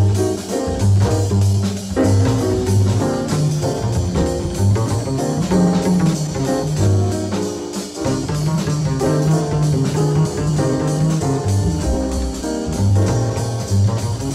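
Jazz music with a steady beat: the video's soundtrack.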